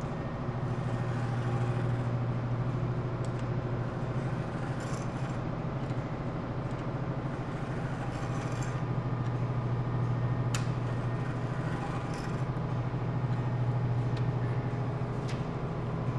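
Round chainsaw file strokes rasping on a saw-chain cutter through a file plate, with a few faint clicks of metal on metal, over a steady low hum.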